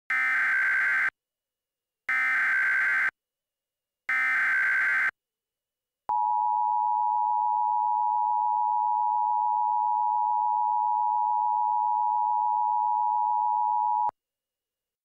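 Emergency Alert System SAME header: three one-second bursts of screeching digital data tones, about a second apart, followed by the EAS two-tone attention signal, a steady harsh tone lasting about eight seconds that cuts off suddenly.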